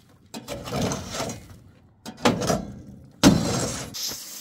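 Straw broom sweeping dirt across a pickup truck's steel bed in three rough scraping strokes, each starting sharply and fading away.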